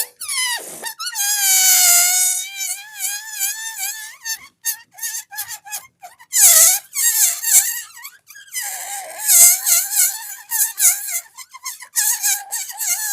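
Squeaking with a wavering pitch that comes in long stretches, broken by many short clicks and pops.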